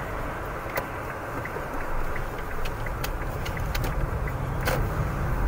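Steady low rumble of a car's engine and tyres on a wet road, heard from inside the cabin while driving. Scattered light ticks run through it, with one sharper click near the end.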